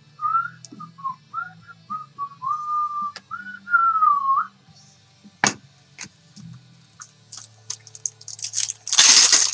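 A person whistling a short tune of several notes for about four seconds, then a sharp snap, and near the end a loud rustle as the cards are handled.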